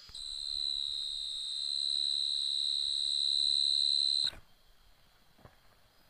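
A steady, high-pitched whine-like tone that holds one pitch for about four seconds, getting slightly louder, then cuts off suddenly.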